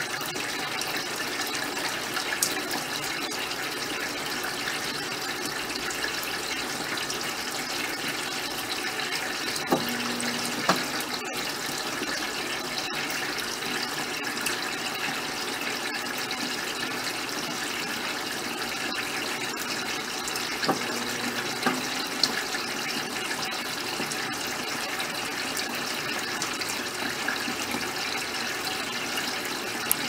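Brastemp BWK15 top-load washing machine filling its tub with water for the rinse: a steady rush of water pouring in. About every ten seconds the motor gives a short hum with a clunk as the basket briefly turns.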